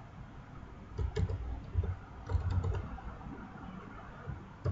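A few scattered computer clicks with dull low knocks, from working a mouse and keyboard at a desk, in clusters about a second in, around two and a half seconds in, and at the end.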